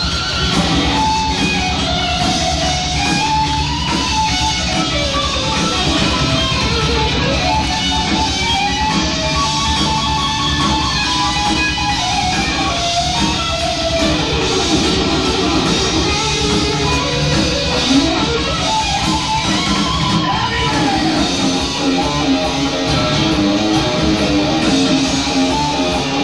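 Heavy metal band playing live: distorted electric guitar playing a lead line that bends up and down, over bass guitar and drums.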